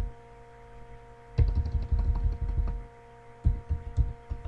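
Computer keyboard keystrokes: a quick run of taps about a second and a half in and a few more near the end, as text is deleted and retyped. A faint steady electrical hum runs underneath.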